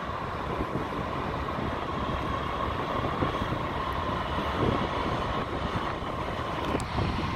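Two Norfolk Southern diesel locomotives rumbling past at the head of a freight train, with a steady high whine over the engine and wheel noise, as the train slows for a signal.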